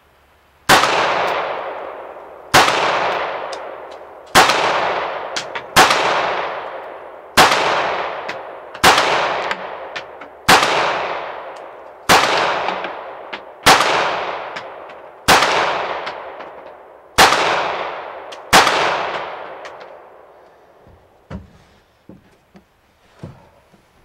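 Twelve shots from a CZ-82 pistol in 9x18 Makarov, fired slowly, about one every one and a half seconds, each trailing off in a long echo. A few faint clicks and knocks follow near the end.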